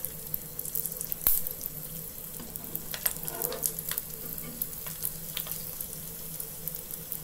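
A sesame ball deep-frying in hot oil: a steady sizzle with small crackling pops, and a single sharp click about a second in.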